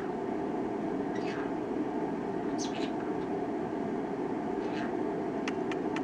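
Green-cheeked conure giving a few short chirps that fall in pitch, followed by three quick clicks near the end, over a steady background hum.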